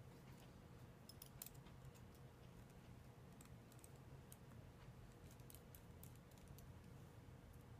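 Faint, scattered small clicks of a precision screwdriver and tools on the iPhone 6 screen's metal shield plate as its tiny screws are taken out, over a low steady hum.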